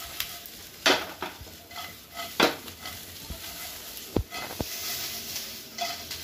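Fried chicken 65 pieces sizzling in a frying pan on a gas burner while a wooden spatula stirs and tosses them. Several sharp knocks of the spatula and pan, the loudest about a second in and again about two and a half seconds in.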